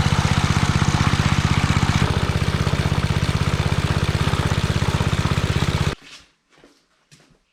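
Locke Triplex reel lawn mower's engine running steadily with an even, fast firing beat, cutting off abruptly about six seconds in. Faint scattered knocks follow.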